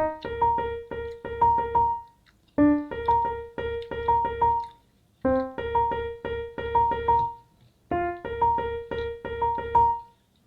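Background piano music: a short phrase of quick repeated notes, played four times with a brief silence between each.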